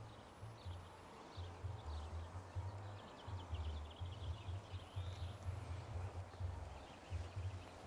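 Low, uneven rumbling of wind buffeting the microphone, coming and going in gusts, with faint high-pitched chirping in the background.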